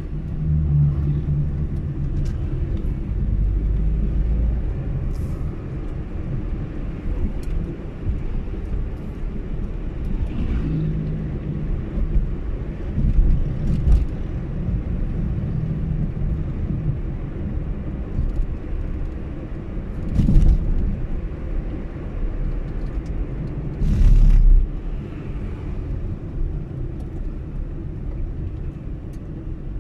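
Car driving on a paved road, heard from inside the cabin: a steady low rumble of engine and tyres. Several louder low thumps come through, the strongest about twenty and twenty-four seconds in.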